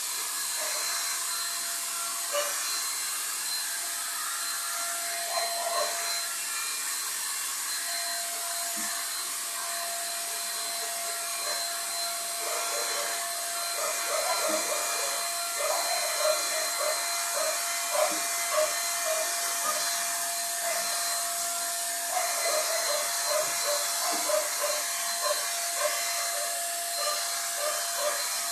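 Handheld electric paint spray gun running steadily: an even hiss with a thin high whine. Short uneven pulses sit over it through the second half.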